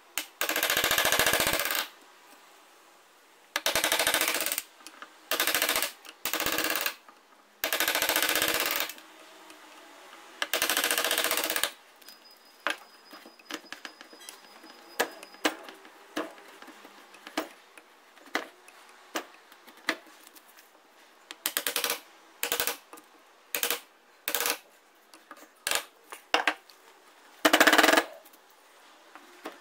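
A handheld power tool run in short bursts of about a second each, with a rapid rattling buzz. After that come scattered clicks, taps and knocks of tools on the work, with a few more short bursts.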